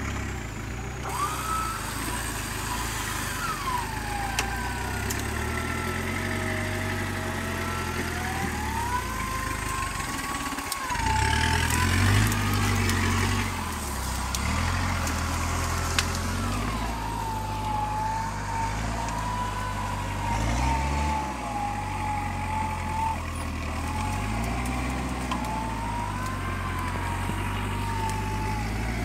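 Off-road 4x4 engine running and revving under load, with a high whine that wavers up and down in pitch throughout.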